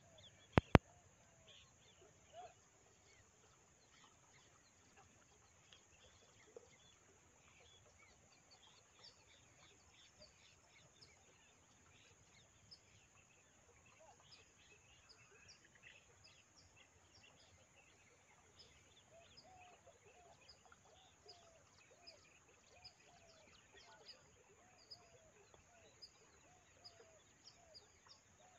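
Faint outdoor ambience of small birds chirping throughout over a steady high hiss. From about two-thirds of the way in, a chicken clucks repeatedly, about twice a second. Two sharp clicks just under a second in are the loudest sounds.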